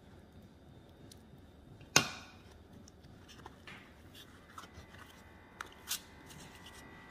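A single sharp knock about two seconds in, then soft crinkling and a few light ticks of a softened corn husk being folded by hand around a tamal.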